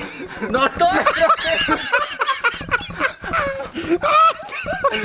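Laughter: voices giggling and snickering in quick, high-pitched bursts.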